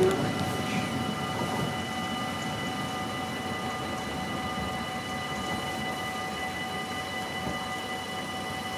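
Level-crossing warning bells ringing steadily while the rumble of a train that has just passed dies away.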